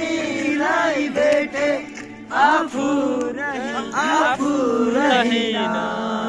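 A group of young men singing together in chorus, several voices at once with melodic lines rising and falling over a held low note.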